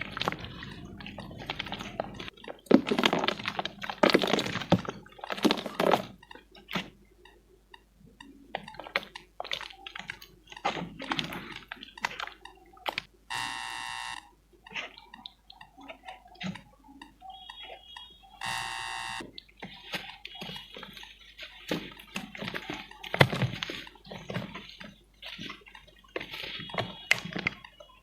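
Pieces of pure cement being crumbled by hand: irregular crunching and crackling, with the loudest crunches in the first few seconds and again near the end. Twice in the middle a short buzzing tone sounds.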